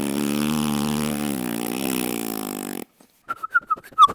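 A person's voice making a long, low, wavering droning noise as a mock machine sound effect, cut off abruptly about three seconds in. Near the end, quick whistled chirps with clicks begin.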